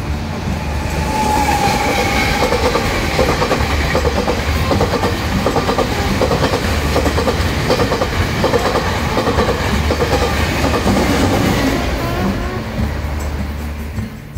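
Taiwan Railway train passing close by at speed, its wheels clacking in a steady rhythm over the rail joints. The sound swells about a second in and fades near the end.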